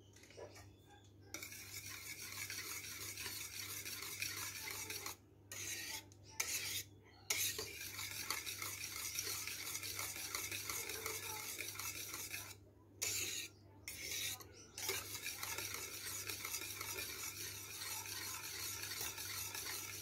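Wire whisk beating a thick milk-and-starch custard cream in a stainless steel pot, with rapid, even scraping strokes against the pot. It starts about a second in and stops briefly a few times.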